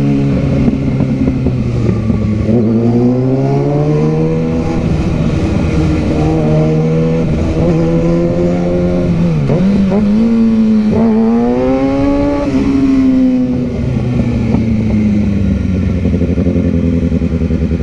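Motorcycle engine running under the rider, its pitch rising and falling as it speeds up and eases off in traffic, with a sharp drop and quick climb again about halfway through.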